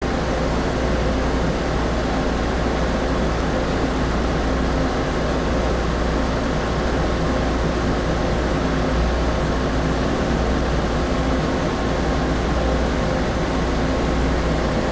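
Diesel railcar engine idling while the train stands at the platform, heard from inside the cab: a steady drone with a faint high whine.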